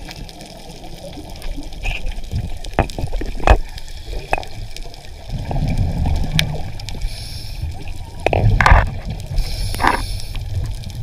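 Muffled underwater sound through a camera housing: water gurgling and sloshing with scattered knocks and clicks. There are two louder gurgling bursts, one a little after the middle and one near the end.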